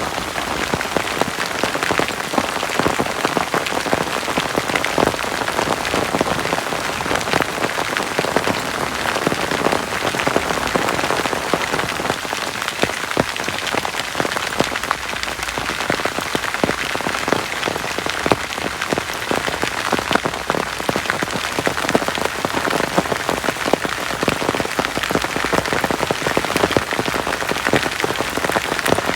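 Heavy rain falling steadily, a dense mass of drops striking a surface close to the microphone.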